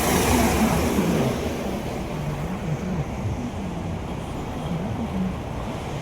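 Road and engine noise inside a moving car: a steady low rumble, with a loud rushing swell right at the start that fades over about a second.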